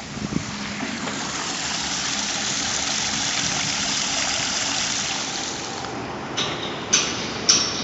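A vehicle passing by, its tyre-and-engine hiss swelling to a peak midway and fading away, followed by a few sharp knocks near the end.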